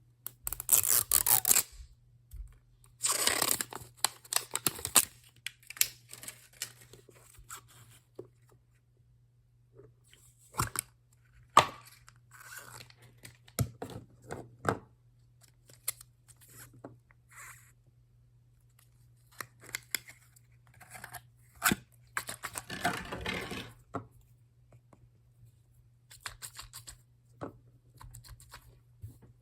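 Blind-box packaging being torn open and handled by hand. Several noisy tearing bursts of a second or two come near the start, a few seconds in and again about three quarters through, with scattered clicks and taps of the box and wrappers between them.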